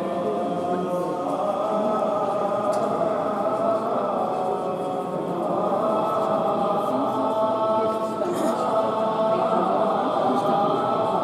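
Several voices singing a slow liturgical chant together, holding long notes and moving to new ones every few seconds.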